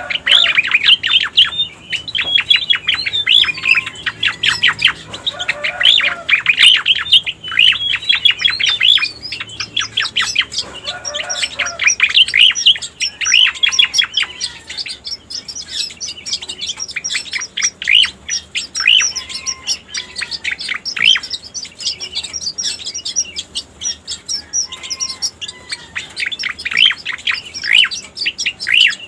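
Striated grassbird (cica koreng) song: rapid runs of short, high chattering notes in phrases of a few seconds with brief pauses between, repeated over and over, as used for a lure call.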